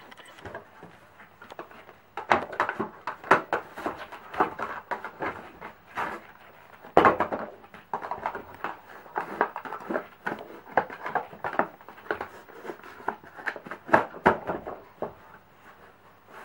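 A corgi nosing and pawing a small cardboard treat box on a wooden floor: irregular scraping, knocking and rustling as the box is shoved and tipped about. It starts about two seconds in.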